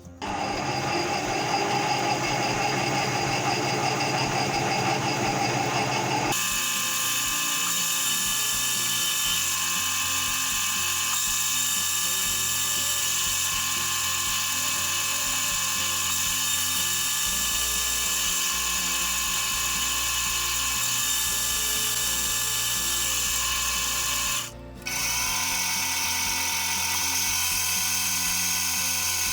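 Metalworking machine tool running while cutting a key blank: a steady high-pitched whine with many tones. The sound changes abruptly about six seconds in and again after a brief break near the end.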